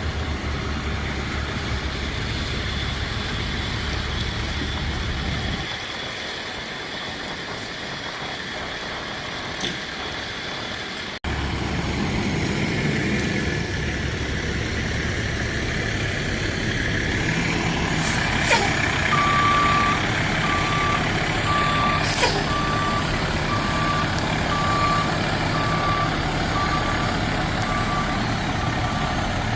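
Fire truck diesel engine running steadily. In the second half, the truck's backup alarm beeps about once a second as it reverses.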